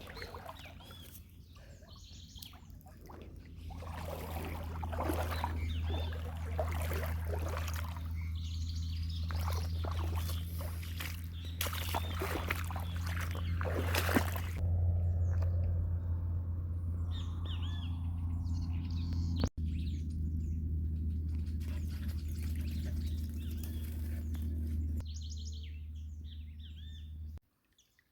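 Small birds chirping, heard over a steady low hum. Dense rustling and crackling runs from about four to fifteen seconds in, and the hum cuts off abruptly near the end.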